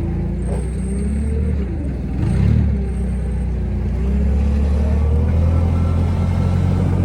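An engine running steadily, with a brief rise in revs about two and a half seconds in and a faint tone wandering up and down in pitch above it.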